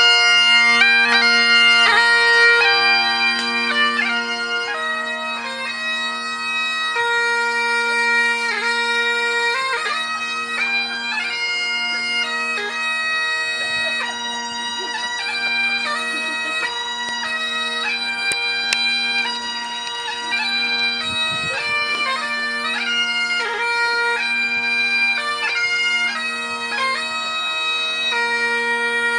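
Great Highland bagpipe playing a march tune over its steady drones, growing somewhat fainter over the first few seconds.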